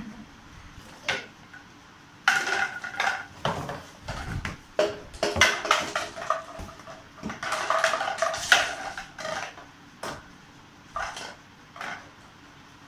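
Empty clear plastic water bottles being handled and set down: a run of hollow plastic clatters, knocks and crinkles as they bump together, busiest in the middle, then a few single knocks near the end.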